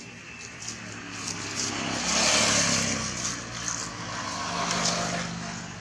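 A motor engine running steadily, with a rushing noise that swells about two seconds in and eases off toward the end, as of a motor vehicle passing by.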